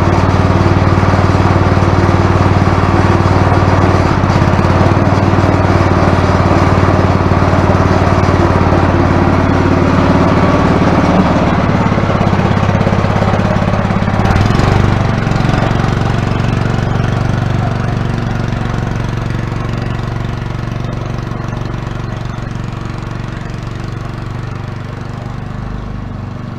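Toro gas snowblower engine running steadily at speed. About halfway through its pitch shifts, and it then grows gradually fainter toward the end.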